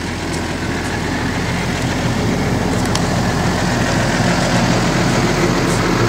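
Tractor's diesel engine idling steadily, slowly getting a little louder.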